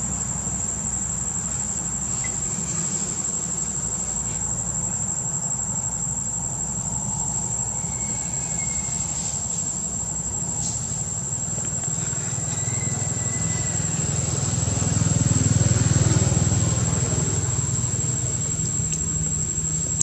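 Steady, high-pitched drone of insects, one constant tone. Beneath it a low rumble swells, peaking about three-quarters of the way through, then eases off.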